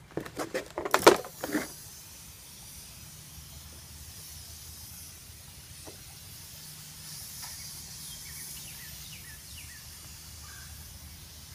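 A quick run of loud knocks and clatters in the first two seconds, then a faint steady outdoor hiss with a few short high chirps near the end.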